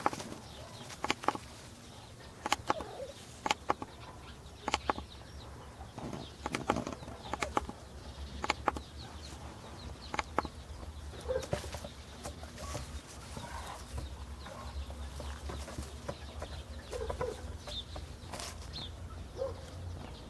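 Outdoor ambience with scattered sharp clicks and rustles, a few short low animal calls, and a low steady rumble that sets in about eight seconds in.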